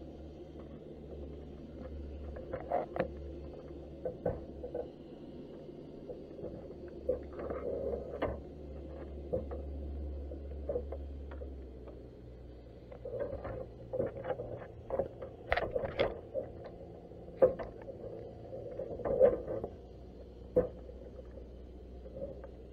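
Underwater sound picked up by a camera in a waterproof housing inside a submerged crab pot: irregular muffled knocks and clicks over a low steady rumble. The rumble drops down about halfway through, and the knocks come thicker and louder in the second half.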